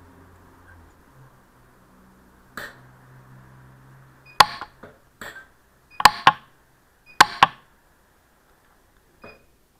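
PUK 3S pulse-arc micro welder firing short weld pulses, each a sharp snap, as gold wire is fused onto the claws of an 18ct gold ring. There are about nine snaps, the loudest in pairs a quarter second apart in the middle.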